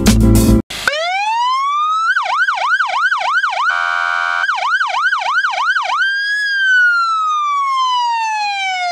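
Electronic siren: a rising wail about a second in, then a rapid up-and-down yelp of about four sweeps a second, a short steady horn-like blast in the middle, more yelp, and a long, slowly falling wail.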